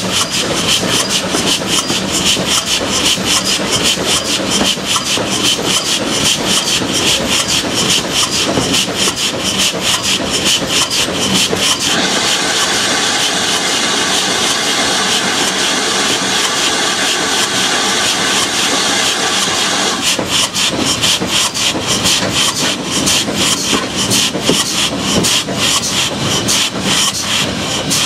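GWR 52xx-class 2-8-0 tank engine working hard under way, heard close up from the cab side: rapid, even chuffing exhaust beats with the run of the wheels on the rails. For several seconds midway the beats blur under a steady hiss of steam.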